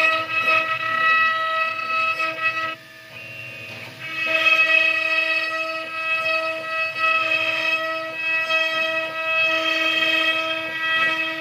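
Spindle of a STYLECNC STG6090 mini CNC router running at speed while its bit carves raised lettering into a wood board: a steady, high, pitched whine. The whine drops away for about a second roughly three seconds in, then comes back.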